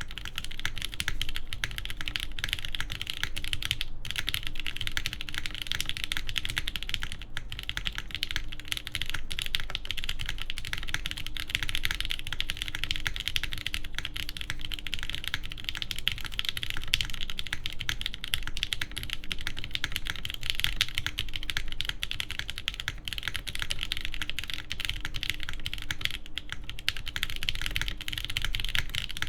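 Fast, continuous typing on a top-mount mechanical keyboard with lubed JWK Banana Split linear switches on a carbon fiber half plate, under JTK keycaps, with a dense stream of keystrokes.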